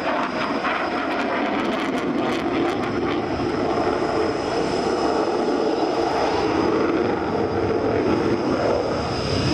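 MiG-29 fighter's twin Klimov RD-33 jet engines heard from the ground during a display pass: a continuous jet noise with a faint steady high whine, swelling slightly toward the end.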